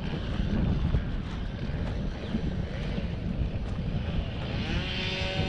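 Wind buffeting the microphone, a steady low rumble. Near the end comes a brief pitched sound with a bending pitch.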